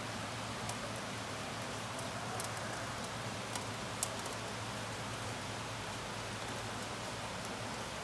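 Heavy summer downpour: a steady hiss of rain, with a few sharp ticks, the loudest about four seconds in.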